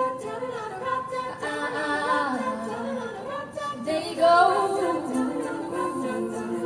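Women's a cappella group singing in several-part harmony, held chords with moving vocal lines.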